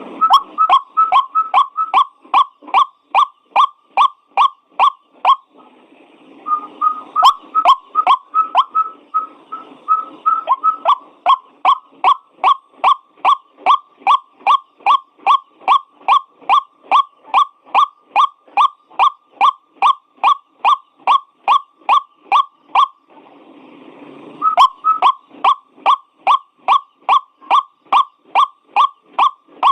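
White-breasted waterhen calling: a long series of identical short, monotone 'kwak' notes, about two or three a second. The series breaks off twice for a second or so, filled with low rough grunting sounds, and then starts up again.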